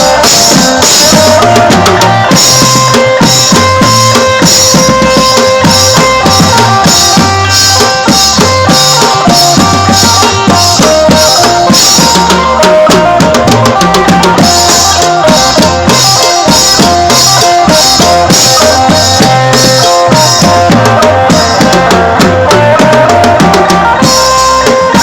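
Live Isan phin prayuk band music: a melody of held notes over drum kit and bass keeping a steady beat.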